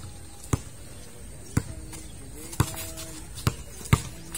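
Basketball dribbled on a concrete court: six sharp bounces at an uneven pace, about half a second to a second apart.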